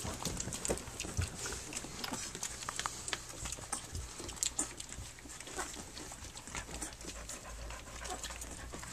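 Litter of three-week-old Standard Schnauzer puppies nursing: many small irregular wet clicks and smacks of suckling, with the mother dog panting.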